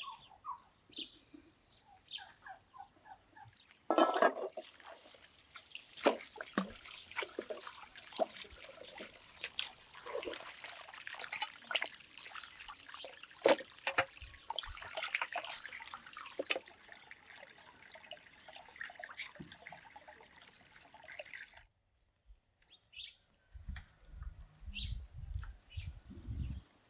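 Water from a garden hose splashing into an enamel basin while raw meat is rinsed and turned by hand, with wet slaps and knocks. Birds chirp briefly before the water starts and again after it stops.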